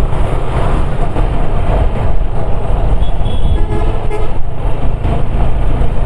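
Wind rumble on the microphone and road traffic noise while riding a motorcycle in traffic, with a vehicle horn honking briefly a little past halfway.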